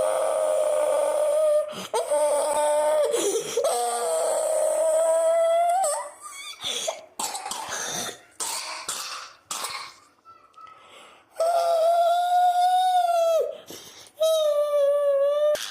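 A person coughing: a run of short, separate coughs for several seconds, starting about six seconds in. Before and after the coughs come long, steady, high sung notes on one pitch.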